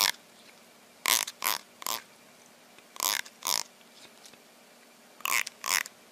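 A fingernail strummed across the teeth of a plastic comb: about eight short rasping strokes, mostly in pairs.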